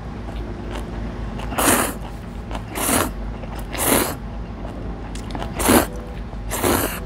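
A person slurping instant ramen noodles into the mouth, five short, loud slurps about a second apart.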